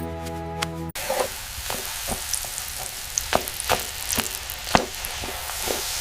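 Food sizzling as it fries in a pan and is stirred, with a spoon clicking and scraping against the pan now and then. Soft music plays for about the first second, then cuts off abruptly into the frying.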